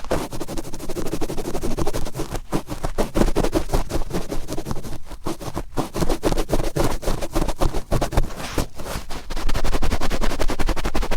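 Cotton swab twisted and rubbed firmly in an ear right at the microphone: dense, fast scratching and crackling with brief pauses, getting louder in the last couple of seconds.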